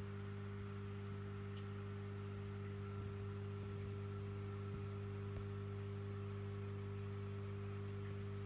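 Steady low electrical hum with a few faint ticks, unchanging throughout.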